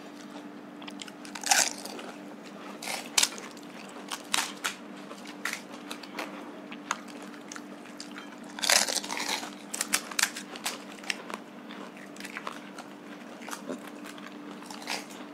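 Two people cracking open and crunching crisp fuchka (panipuri) shells and chewing them: a run of small crackles and crunches, the loudest about one and a half, three and nine seconds in. A faint steady low hum sits underneath.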